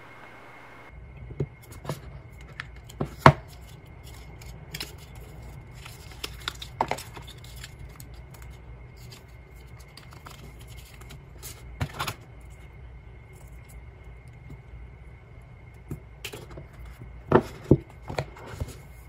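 Hands handling iPhone packaging: scattered sharp clicks, taps and light scraping of paper and cardboard as the cable's wrap is peeled off, with a cluster of louder taps near the end as the phone is handled on top of its box. A low steady hum runs underneath.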